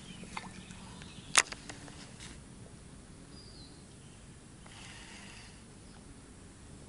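Quiet riverside ambience with faint birdsong and a short bird chirp midway. One sharp click about a second and a half in is the loudest sound.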